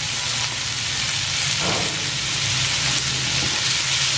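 Ground beef frying with garlic and onion in oil in a nonstick pan, sizzling steadily.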